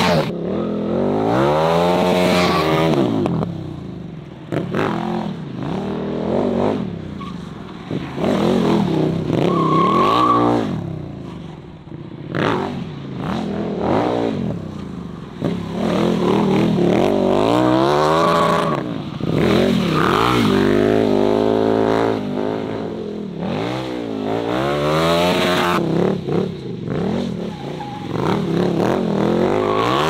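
KTM 1290 Super Duke R's V-twin engine breathing through a full titanium Austin Racing exhaust, revved hard again and again while the bike drifts, its pitch climbing and dropping every second or two.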